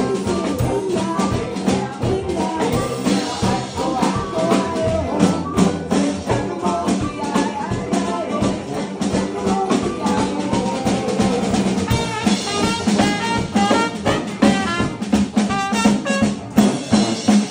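A New Orleans–style party band playing live: a drum kit keeps a steady beat under a tuba bass line, with electric guitar and brass.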